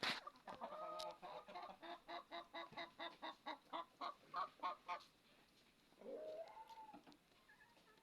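Bird calling: a rapid run of short, pitched notes, about four a second, for some four seconds, then one longer call that rises and falls. A sharp click at the very start.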